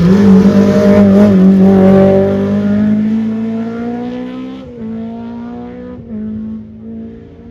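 Rally car engine at high revs, loud at first, fading as it pulls away from the corner, with a few gear changes in the second half.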